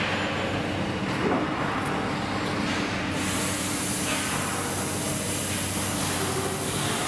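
Section roll-bending machinery running: a steady low hum of several tones, with an even hiss joining about three seconds in.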